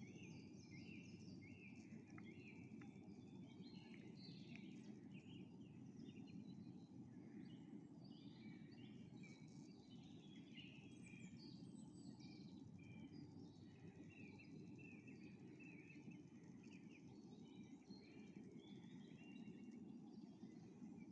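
Faint chorus of small songbirds, many short chirps and trills overlapping, over a low steady background rumble.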